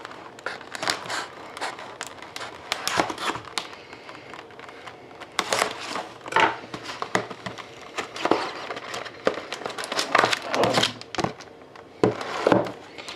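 Plastic wrapping crinkling and rustling in irregular bursts, with some tearing, as a sealed box of hockey trading cards is unwrapped and opened by hand.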